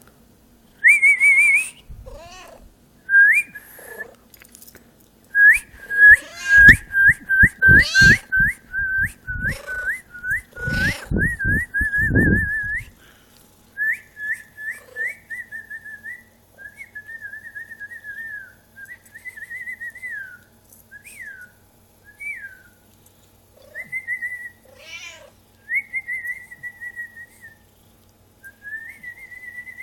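A person whistling rapid, repeated bird-like chirps and trills, with a cat meowing back at it now and then. From about five seconds in to about thirteen seconds in, a run of loud thumps sounds under the whistling, then the whistling goes on softer in short warbles.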